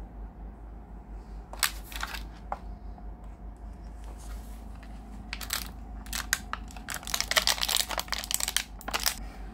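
Hands handling clear plastic packaging and small plastic erasers: scattered clicks and crackles, densest from about seven to nine seconds in.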